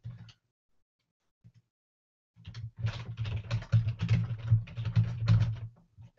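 Typing on a computer keyboard: a fast, dense run of keystrokes starting about two and a half seconds in and lasting about three and a half seconds.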